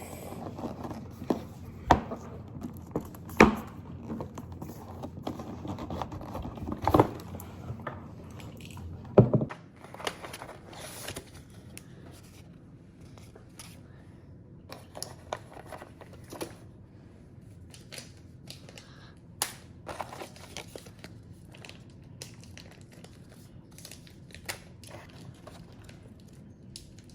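Packaging being unwrapped and handled: plastic and paper crinkling and tearing, with several sharp knocks in the first ten seconds, then quieter scattered light clicks and taps.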